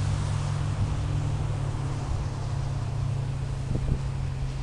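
Wind rushing on the microphone over a low, steady drone from approaching diesel locomotives.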